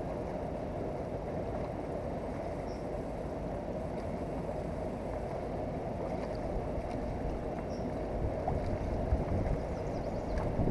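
Steady rushing of a fast-flowing river running past the bank.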